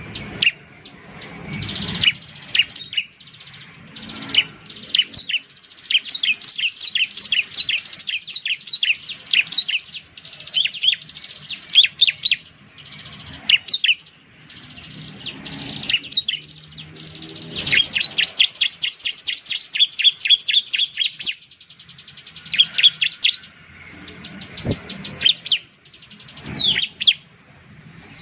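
Bar-winged prinia (ciblek) singing: rapid strings of high, sharp chirps in repeated bursts, some running together into fast trills.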